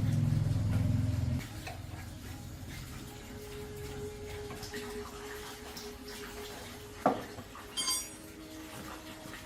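A low steady hum stops about a second and a half in. Later comes a sharp knock, then a ringing metallic clink of metal parts or tools being handled.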